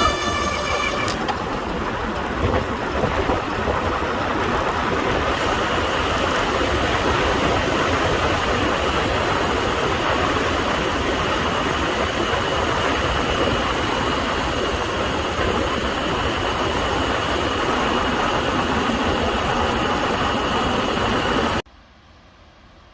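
Disc brakes of a CUBE Attain GTC Pro road bike squealing with a steady high ring, which stops about a second in. Then a loud, even rush of wind and tyre noise from the bike at speed, which cuts off suddenly near the end.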